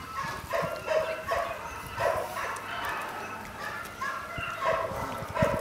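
Dogs barking and yipping in a string of short calls, several a second, with brief pauses between clusters.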